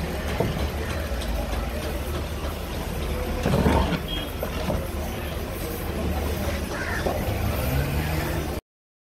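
Heavy curved-blade knife chopping into a wooden block, one loud chop about three and a half seconds in, over a steady low rumble; the sound cuts off suddenly near the end.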